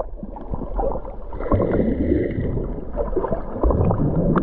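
Sea water heard from an action camera held underwater during swimming: muffled sloshing and gurgling, with small clicks and bubbles as the swimmer's arm moves the water.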